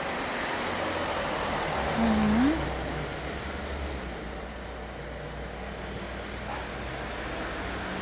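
Street traffic: a car passing, its noise swelling and then easing off, with a low engine hum. A short rising tone about two seconds in is the loudest moment.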